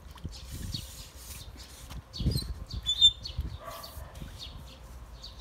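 A long-handled skimmer net sweeps and splashes through a small garden pond as it scoops out algae, with louder swishes about two to three seconds in. Small birds chirp in the background.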